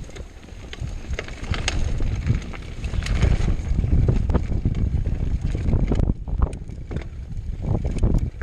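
Mountain bike descending a rough trail: wind buffeting the microphone, with a rattle of sharp clicks and knocks from the bike and tyres over the ground, more distinct knocks from about six seconds in.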